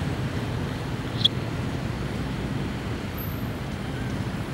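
Steady low outdoor rumble of background noise, with one short high-pitched chirp about a second in.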